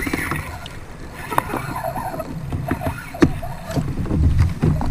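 Double-bladed kayak paddle stroking through fast river current, with water rushing and several sharp knocks.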